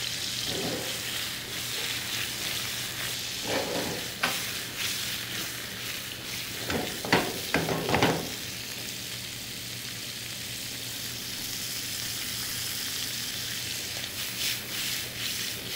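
Tiger prawns sizzling in hot oil in a nonstick frying pan, a steady high hiss. They are stirred in the pan, with a few louder scrapes about four seconds in and again around seven to eight seconds in.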